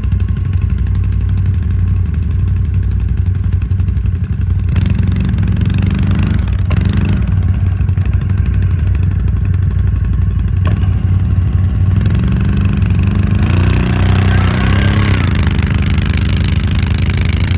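ATV engines running under load in deep snow, revving up and down twice as the quads' wheels fail to grip.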